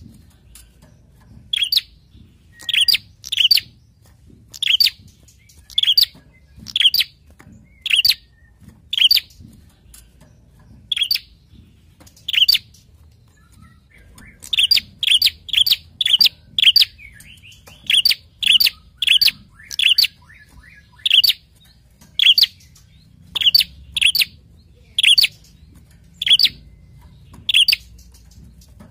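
A prenjak calling: sharp, very short chirps repeated about once a second, with a quicker run of calls in the middle.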